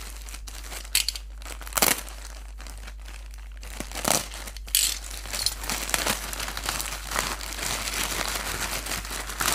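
Plastic poly mailer bag crinkling as it is handled and slit with a utility knife, with a few short sharp rips in the first half. From about five seconds in it crinkles steadily as the bag is pulled open.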